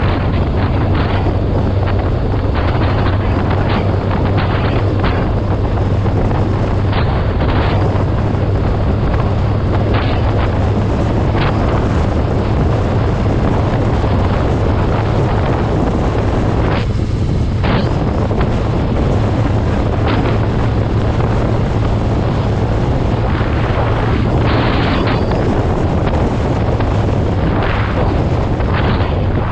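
Vehicle engine droning steadily on the move, under heavy wind rush buffeting the microphone.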